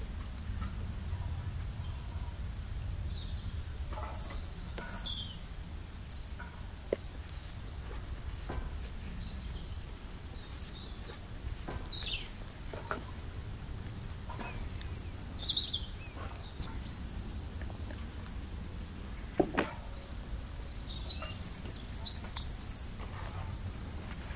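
Small birds chirping in short, scattered high calls, with the loudest flurry near the end, over a low steady rumble; a couple of brief knocks in between.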